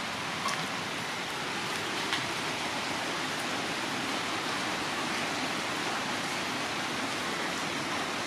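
Steady rain falling, an even hiss, with a couple of sharper drop ticks in the first two seconds.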